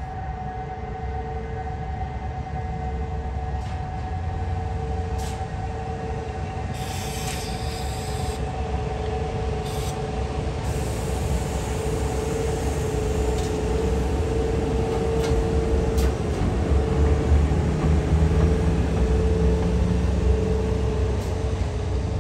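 Historic Swiss electric locomotive running on the rails with a steady electrical hum over the low rumble of its wheels, growing louder in the second half as it draws near.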